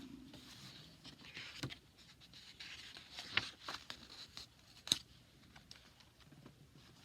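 Soft paper rustling with three sharp ticks, the loudest about five seconds in, as the pages of a picture book are handled and turned.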